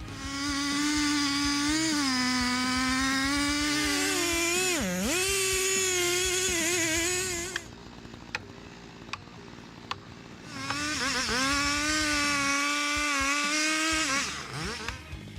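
Chainsaw held at full throttle for about seven seconds, its high whine dipping briefly in pitch partway through. It drops to a lower level for a few seconds, then revs up again for about three more seconds before falling off near the end.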